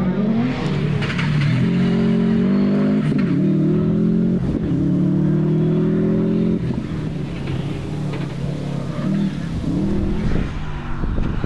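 Subaru Impreza rally car's flat-four boxer engine under hard acceleration, its pitch climbing through the revs with a brief dip at a gear change about four and a half seconds in. The note cuts off sharply about six and a half seconds in as the throttle is lifted, then runs lower and more unevenly with a couple of short throttle blips.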